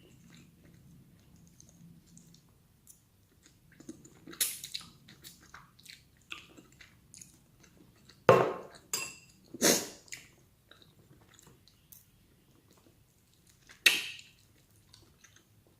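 Close-miked chewing and eating, with cutlery clinking against a plate; a few louder sharp clinks about halfway through and again near the end.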